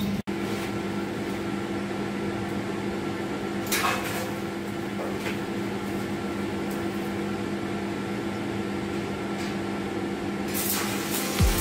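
Steady hum of a ventilation fan, with a couple of brief clinks about four and five seconds in.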